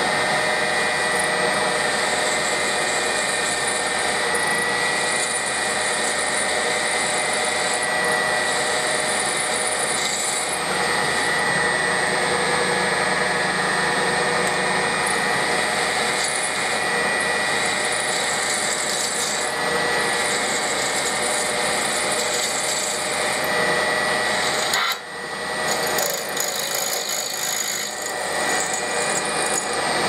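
Milling machine spindle turning a twist drill as it cuts down through a cast steel part, a steady scraping grind of the bit in the metal over the machine's running hum. About 25 seconds in the sound drops briefly, then resumes less evenly.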